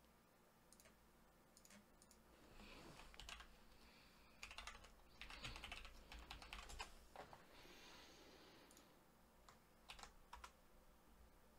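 Faint typing on a computer keyboard, in a few short runs of keystrokes with pauses between them.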